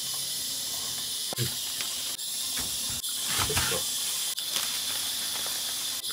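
Pressure cooker on a gas burner hissing steadily as its valve vents steam under high pressure. A few knocks and a louder soft thud a little after the middle come from chopped onion and minced meat being dropped into a frying pan.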